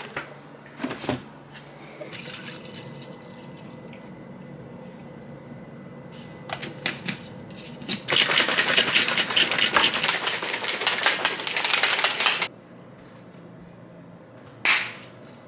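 Liquid running or pouring for about four seconds, cutting off suddenly, after a few light clicks and knocks over a low steady hum.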